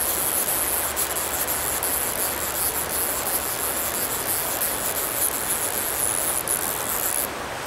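Shallow stream water rushing steadily over rocks and around a wader's legs, with a steady high-pitched buzz of insects above it.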